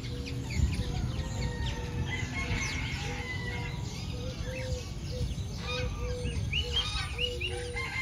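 Several birds calling together: a steady run of short low notes, about two or three a second, with higher chirps and whistles over them.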